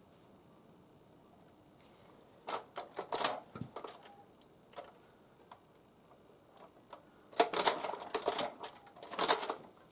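Tippmann Boss hand-lever leather sewing machine stitching, making sharp mechanical clacks. They come in two bursts of strokes, one about two and a half seconds in and a longer one near the end.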